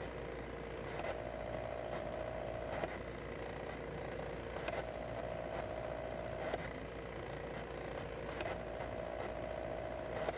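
Desktop diode laser engraver's stepper motors whining as the head moves back and forth engraving wood, in passes of about two seconds, each marked by a sharp click.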